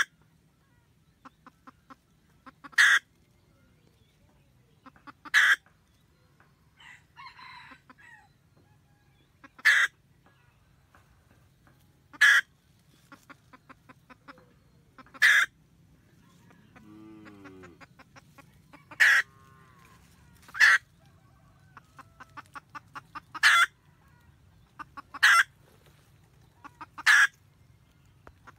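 Red junglefowl hen cackling: runs of soft, quick clucks, each ending in a loud sharp note, repeated about every two to three seconds. This is the hen's cackle that calls the cock.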